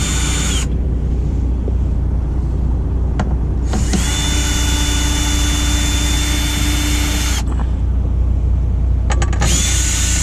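Cordless Ryobi drill/driver running in short bursts as it backs screws out of a metal bracket: a whine for under a second at the start, a longer run of about three seconds from about four seconds in, and another start near the end, with a few clicks in between. A steady low hum runs underneath throughout.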